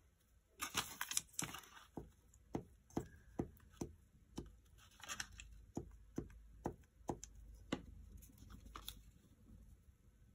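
Fingers pressing and patting a glued paper strip down onto a paper envelope on a cutting mat: a run of light, evenly spaced taps, about two a second, with brief paper rustling near the start and again in the middle.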